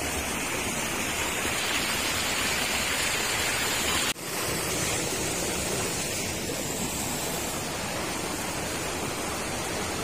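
River water rushing steadily, with a brief dip about four seconds in.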